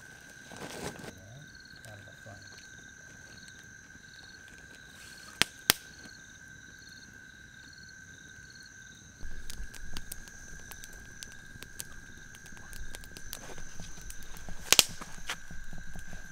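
Night insects keep up a steady high trill, with a pulsing call about twice a second through the first half. Over it the campfire cracks and pops: two sharp pops close together about five seconds in, scattered crackle with a low rumble from about nine seconds, and one loud pop near the end.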